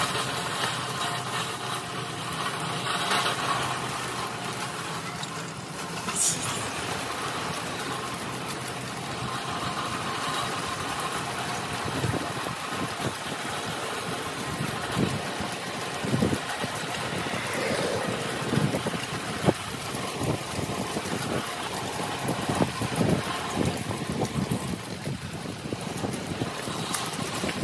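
A red steel-mesh utility wagon rolling over rough pavement, with a steady rolling noise from its wheels. From about halfway on, the metal frame and handle give short, irregular clanks and rattles.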